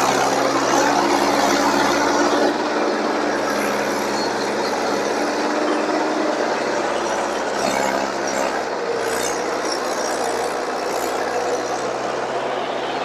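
Mahindra tractor's diesel engine running steadily under load as it pulls a heavily loaded trolley through deep sand, easing off slightly a couple of seconds in.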